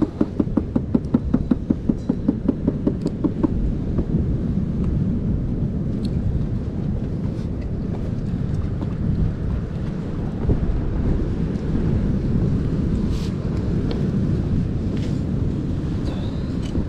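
Steady low rumble of wind buffeting the microphone, with surf behind it. For the first three or four seconds a rapid, even pulsing of about five beats a second sits on top, then stops.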